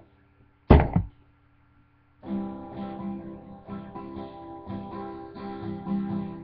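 A single loud thump about a second in, then acoustic guitar strumming starting about two seconds in: chords struck in a steady rhythm.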